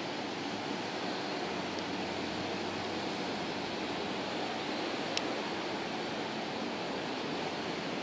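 Steady, even hiss of railway station ambience, with no train passing, and a single sharp click about five seconds in.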